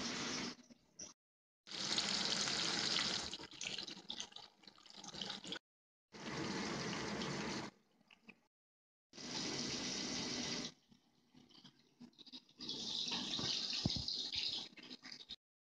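Sliced sausage sizzling as it fries in oil in a pan on a gas stove. It comes in several stretches that start and cut off abruptly, with short silences between them.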